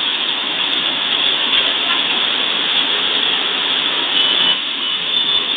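Heavy tropical downpour, a steady loud hiss of rain pouring down.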